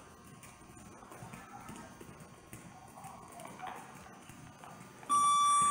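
Bare feet hopping on foam mats, faint soft footfalls. About five seconds in, a loud steady electronic beep from an interval timer starts, signalling the end of the interval.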